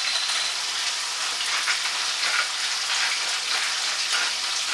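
Salmon frames sizzling in a frying pan over a gas flame: a steady hiss with scattered little crackles.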